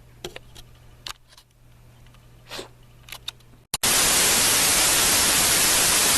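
A cat's faint short coughs, a few times, then, just under four seconds in, a sudden loud, steady static hiss.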